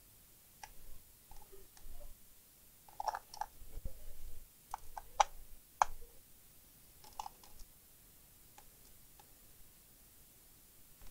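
Irregular small clicks and taps of a screwdriver and loose screws on a laptop's plastic case as its bottom-cover screws are taken out, busiest in the middle, with a few soft low knocks.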